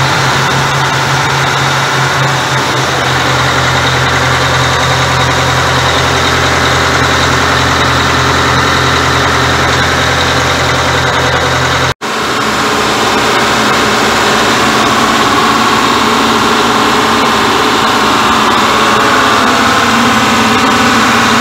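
Detroit Diesel 8V92TI two-stroke turbocharged V8 marine diesel idling, loud and steady, close up in the engine room. The owner reports no abnormal noises. The sound cuts out for an instant about halfway through.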